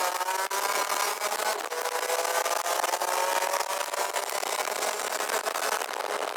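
Rotax Max DD2 kart's two-stroke engine pulling under acceleration, its pitch climbing slowly over the first few seconds and then holding steady at speed. Wind rustle on the microphone runs over it.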